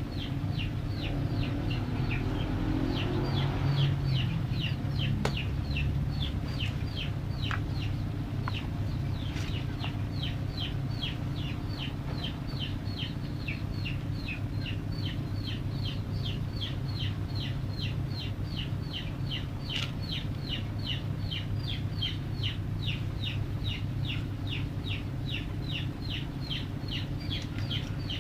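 A chick peeping steadily, two or three short falling peeps a second, over a steady low hum.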